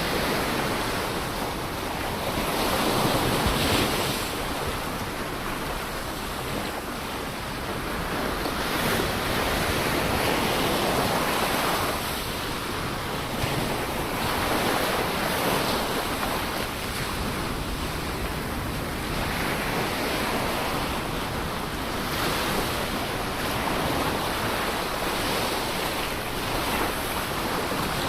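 Ocean waves breaking and washing on the shore, a continuous surf rush that swells and eases every few seconds, with some wind on the microphone.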